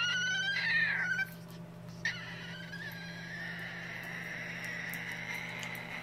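White cockatoo calling with a wailing, cat-like voice: a short call that rises in pitch over the first second, then a second, much longer drawn-out call starting about two seconds in.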